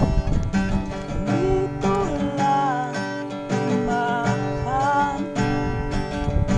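Background music: strummed acoustic guitar with a melody line over it.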